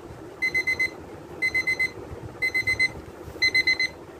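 Battery-powered analog alarm clock's alarm going off: short, high electronic beeps in quick groups of four, one group about every second.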